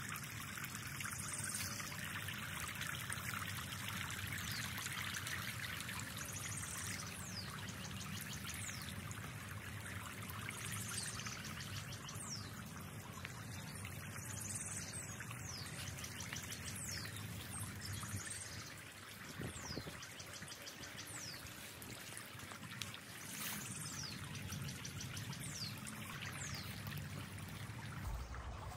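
Steady trickling of running water, with short faint high chirps now and then.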